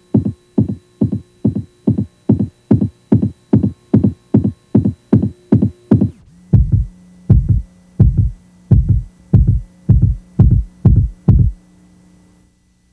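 Synthesized electronic soundtrack: a steady throbbing pulse, about three beats a second, over a held drone. About six seconds in the drone drops lower and the beats turn deeper and louder, then they stop near the end, leaving a faint hum.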